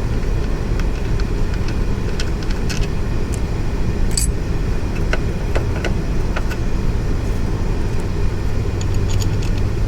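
Scattered light metallic clicks and clinks of hand tools and small parts during a motorcycle teardown, over a steady low rumble.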